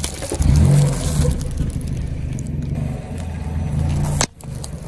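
Car engine running at low revs as the car rolls slowly over objects on asphalt: first a plastic-wrapped pack of tissues, then a plastic dish brush. The sound drops out briefly about four seconds in.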